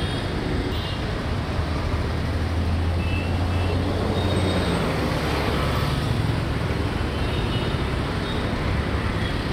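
Steady noise of slow, heavy road traffic, with a deep engine drone from a heavy vehicle in the first half and a few faint distant horn toots.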